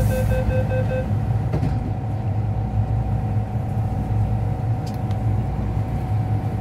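Steady low rumble and hum inside an MTR M-Train car. A repeating electronic beep stops about a second in.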